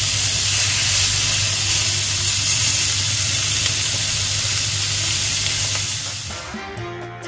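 Thin slices of cecina (salted beef) sizzling loudly in hot lard in a frying pan, a steady, dense hiss. Near the end the sizzle fades and background music comes in.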